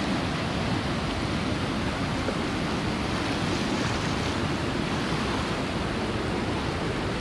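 River rapids rushing steadily over rocks.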